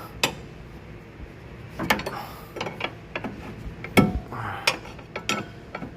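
Irregular metallic clanks and knocks from the suspension under a Suzuki APV as it is worked by hand to find a clunk and squeak over bumps; the loudest knock comes about four seconds in.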